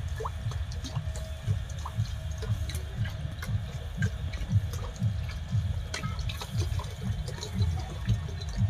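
Milk pouring from a plastic bottle into a wok, over a continuous low, unevenly pulsing rumble with scattered light clicks.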